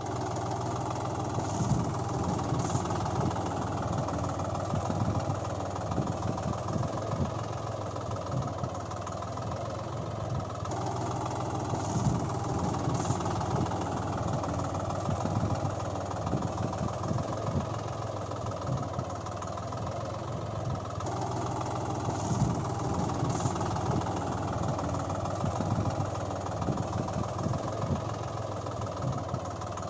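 Tractor engine running steadily with a low, knocking beat. It is a looped recording that repeats about every ten seconds.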